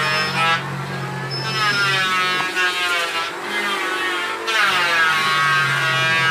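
Electric motor of a wood-mortising machine running while its chisel bit cuts a mortise in a wooden beam. Its whine sags and rises as the load on the bit changes, climbing back up about four and a half seconds in.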